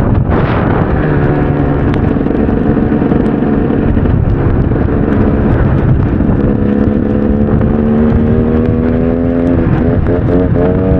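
KTM EXC 300's two-stroke single-cylinder engine running under load while riding, its pitch climbing slowly over several seconds, then rising and falling quickly with the throttle near the end.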